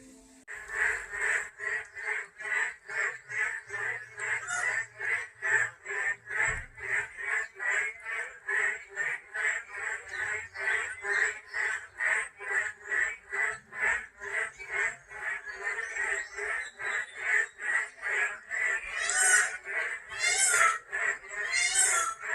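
Frogs calling in chorus: an even run of short croaks, about three a second. Near the end there are three higher, louder rasping calls.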